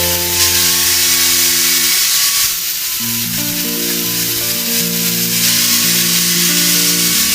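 Background music of held instrumental notes changing every second or so, over a steady hiss.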